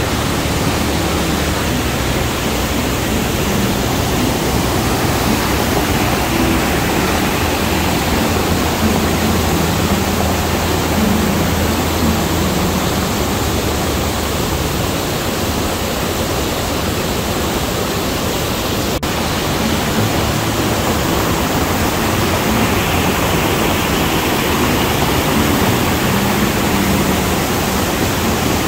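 Waterfall in full flow, swollen by days of rain: a steady, loud rush of falling water.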